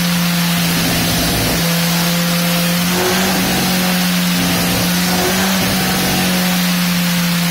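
Honda CBR1000RR inline-four with an Arrow full-system exhaust running loudly at a steady high engine speed on a dyno, its pitch holding almost level, over a wide rushing noise.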